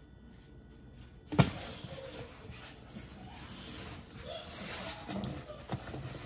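A sharp thump about a second in, followed by the shuffling and handling noise of a cardboard shipping box being carried and lifted.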